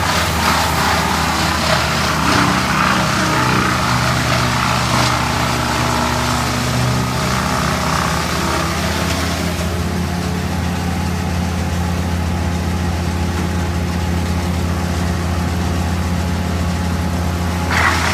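A large engine running steadily at a constant speed, with a hissy, rattling layer above it that dies down about ten seconds in.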